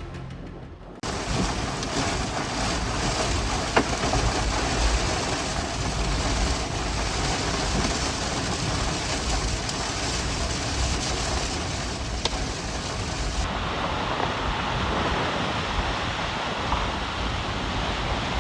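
Strong storm wind rushing and buffeting the microphone, a steady loud noise with a deep rumble, cut in suddenly as music ends about a second in. A sharp click about 4 seconds in, and the noise turns duller about 13 seconds in.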